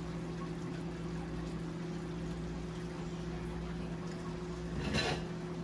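A pot of curry chicken stew simmering and bubbling on the stove, over a steady hum. A brief louder sound about five seconds in.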